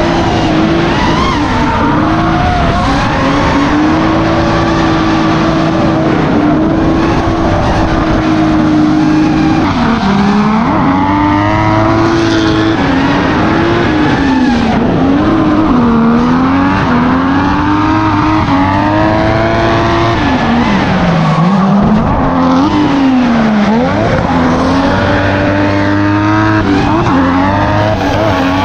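Drift cars' engines running at high revs, the pitch dropping and climbing again several times as the drivers work the throttle, over continuous tyre squeal from cars sliding.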